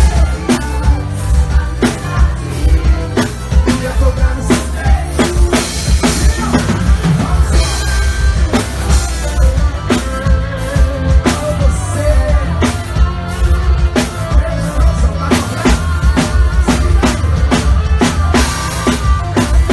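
Live forró band music with a drum kit beating out a steady, fast rhythm of kick and snare under melodic instruments.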